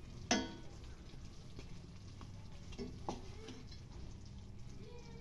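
Wooden spatula stirring and scooping chicken adobo in a stainless steel pan, with a sharp knock against the pan about a third of a second in and lighter knocks about three seconds in.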